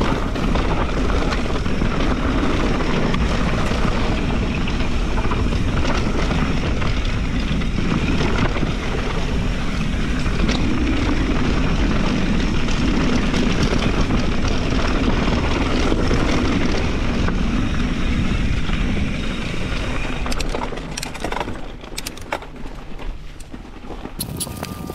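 Mountain bike rolling fast down a rocky dirt trail: loud wind rushing over the microphone mixed with tyre and frame rumble. About 20 seconds in the wind noise drops, and sharp clicks and knocks come through.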